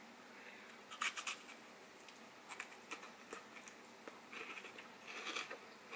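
Faint wet mouth sounds of licking and sucking an ice popsicle: scattered small smacks and slurps, bunched about a second in and again in the last two seconds.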